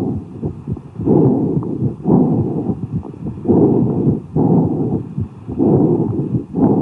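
Amphoric breath sounds heard through a stethoscope over a lung cavity: about six breath phases in a row. Each expiration is about as long as the inspiration but lower in pitch, with a short pause between them and heart sounds audible beneath.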